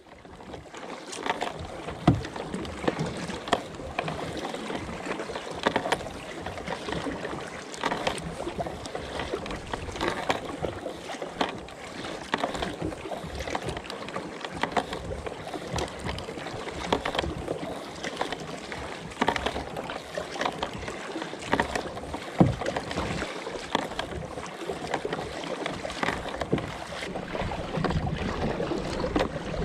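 Kayak paddle strokes: the blades dip and pull through sea water with a splash about every two seconds, over a steady wash of water along the hull.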